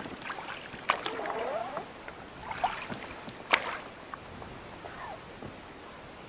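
Water splashing and knocks in a small boat as a hooked chub is played and brought in on a float pole: three sharp splashes or knocks, about a second in, a little before the middle and just after it, the last the loudest.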